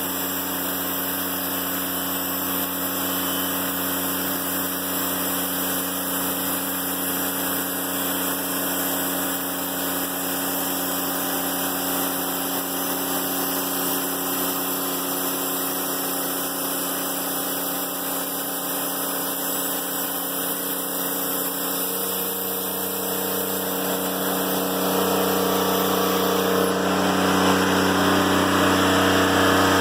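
Diesel engine of a Timberking 1400 band sawmill running steadily as the blade cuts through a poplar log, growing louder about twenty-five seconds in.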